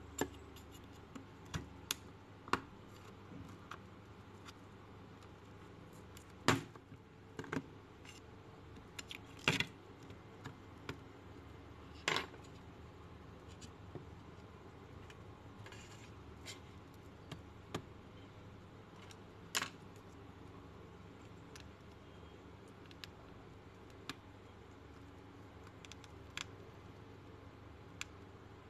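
Small clicks, taps and scrapes, scattered and irregular, as a Huawei Mate 10 lite's plastic and metal parts are handled and pried during a teardown, over a low steady hum.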